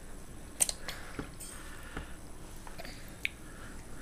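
Toddler drinking from a plastic sippy cup: quiet sucking and mouth sounds with a few small clicks spread through.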